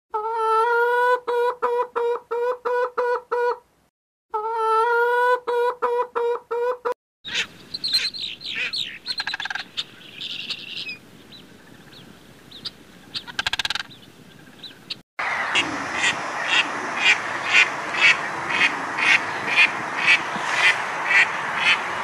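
Three bird recordings in turn. First a domestic hen calling in two runs of short, rapid pitched notes with a brief gap between them. Then fainter, scattered calls with falling notes from a common crane, and finally an Egyptian goose calling about twice a second over a steady rushing background.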